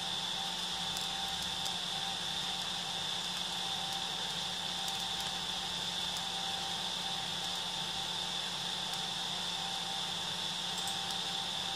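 Steady whirring hum of a small electric cooling fan on a 3D printer, with a high whine over it and a few faint ticks.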